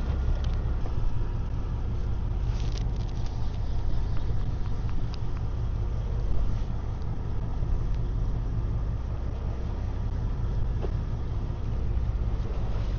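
Fishing boat's engine running with a steady low hum, a few faint clicks over it.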